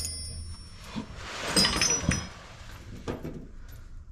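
Loose steel bolts and washers clinking and rattling as they are handled, with a few light metallic knocks and short rings.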